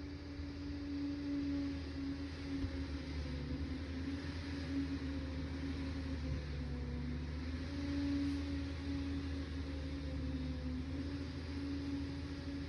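Liebherr PR 746 crawler dozer's diesel engine running steadily, its pitch wavering a little up and down as the load changes.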